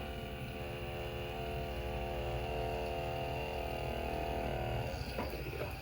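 Steady electric hum with several held tones, which fades out about five seconds in, followed by a couple of faint clicks.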